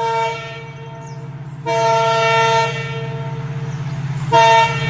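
Approaching Indian Railways diesel locomotive sounding its multi-tone air horn in one long call with three loud blasts, the horn chord carrying on between them, over the low running of its diesel engine that grows louder as the train nears.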